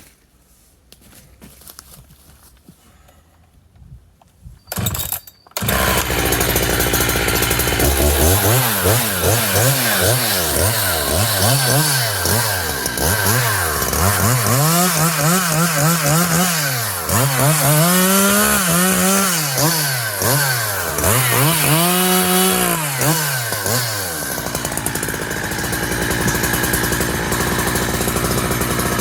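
Big-bore Husqvarna 372XP two-stroke chainsaw, freshly rebuilt and still bedding in, pull-started and catching about five seconds in. It then runs with its engine speed rising and falling over and over for some fifteen seconds before settling to a steadier, lower running.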